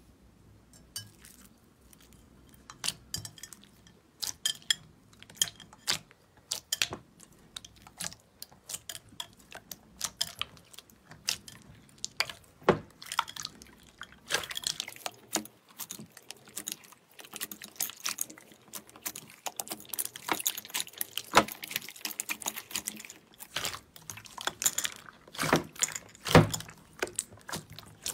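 Slime being squeezed and poked by hand, making an irregular run of sticky clicks, pops and squelches that grows busier as it goes on.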